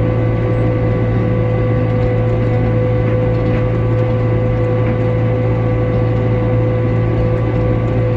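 Farm machinery running steadily: a constant low engine drone with a steady whine over it.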